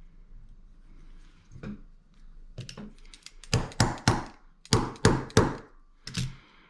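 About ten sharp taps and knocks of small metal parts and tools on an old Ronson lighter. They come as the plugged tube is worked at to clear it, close together and loudest in the middle.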